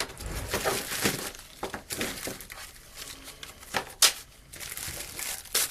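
Crinkling and rustling of paper and plastic being handled, with sharp clacks about four seconds in and again near the end.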